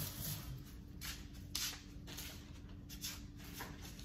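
Hands handling pantry food packages: a few brief, soft rustles and rubs over a faint steady hum.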